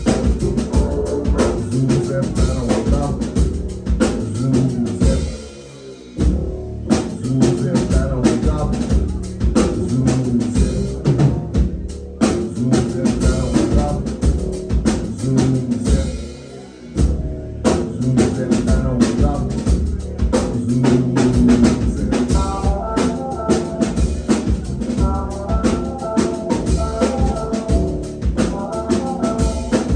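Live band playing an instrumental groove: drum kit and bass, with two short breaks where the band drops out, the first about five seconds in and the second about sixteen seconds in. Repeated higher pitched notes join the groove about twenty-two seconds in.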